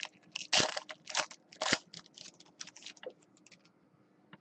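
Trading-card pack and cards being handled: a quick run of short crinkling clicks for about three seconds, then only a few faint ticks.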